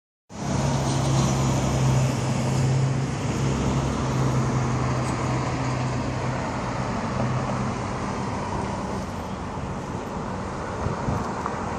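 Road traffic noise on a city street, with a steady low engine hum that fades after about seven seconds.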